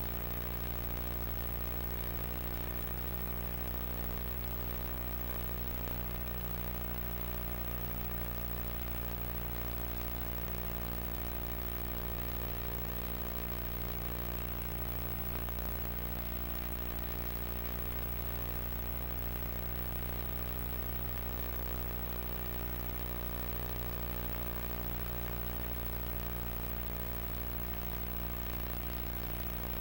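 Steady electrical mains hum with a buzz of many evenly spaced overtones and a light hiss, never changing in level or pitch: the kind of hum picked up on an old video recording with no sound of its own.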